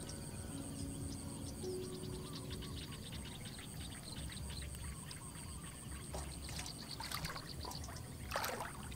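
Water splashing and dripping as a wet fishing net is pulled and shaken in shallow floodwater, with a few louder splashes near the end. A steady, high pulsing insect trill runs underneath.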